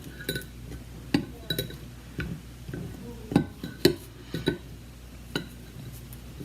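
A metal spoon and fork clinking against a bowl while cookies are coated in melted chocolate: scattered light taps at an uneven pace, the louder ones ringing briefly.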